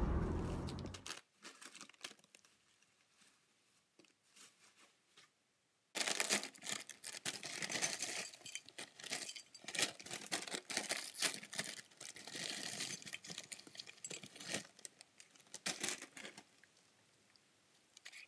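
Snack bags crinkling and rustling as potato chips and tortilla chips are piled onto a plate: a dense run of crackling that starts abruptly about six seconds in and lasts about ten seconds, with only a few faint ticks before it.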